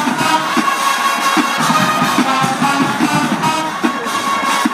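High school marching band playing: held brass-like notes over a moving bass line, without a break.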